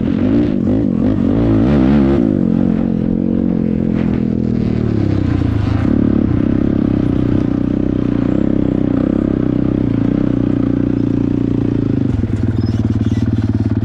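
Dirt bike engine running, its pitch wavering up and down with the throttle for the first couple of seconds before settling to a steady note; near the end the note turns rougher, with a fast even pulsing.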